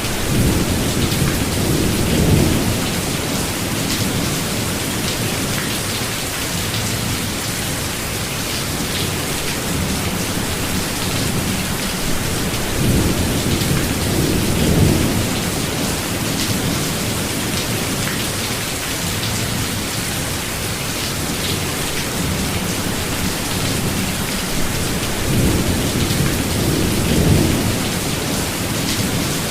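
Steady rain falling in a forest, with low rolls of thunder swelling three times: near the start, about halfway through and near the end.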